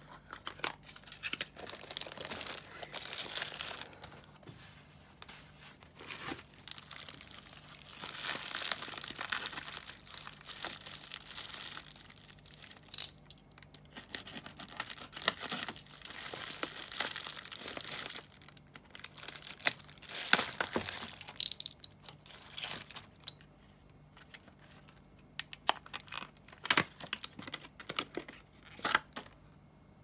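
Crinkly plastic packaging and bubble wrap being handled and torn open, in irregular crackling bouts with a few sharp clicks.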